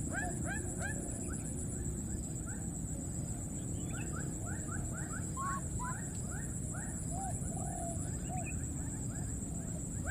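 Many short, high chirping animal calls, several a second, most of them falling in pitch, over a steady low rumble.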